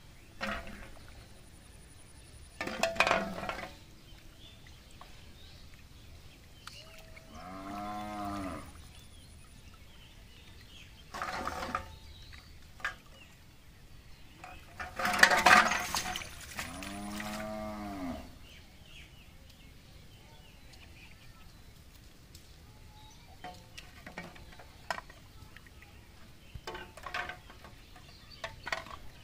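A cow mooing twice, each call about a second and a half long and rising then falling in pitch. Between the calls come a few short, loud noisy sounds, the loudest one about halfway through, just before the second moo.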